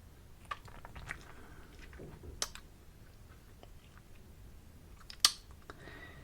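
Mouth sounds: soft wet clicks and lip smacks, scattered irregularly, with one sharper, louder click about five seconds in.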